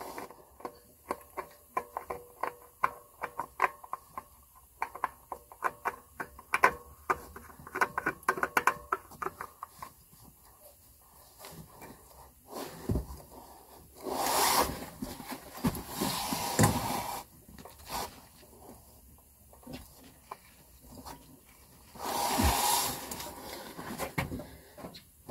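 New oil filter being screwed on by hand onto a Kawasaki Mule 4010 engine: a quick run of small clicks and rubbing as the hand turns it. A few short bursts of rustling noise follow later.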